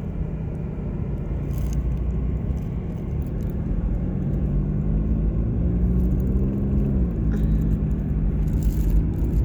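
Car driving along a road: a steady engine and tyre rumble, the engine note rising a little and then dropping about seven seconds in.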